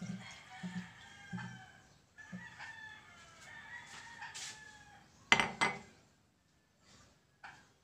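Water glugging as it is poured from a pitcher into a metal wok for the first second and a half, then a rooster crowing in the background. A loud, sharp clank comes about five seconds in.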